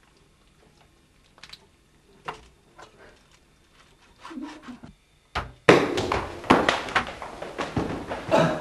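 Knife cutting through a raw chicken on a stone countertop, with faint scattered taps and clicks. About five and a half seconds in, a short thump is followed by a sudden loud, dense run of knocks and rough noise.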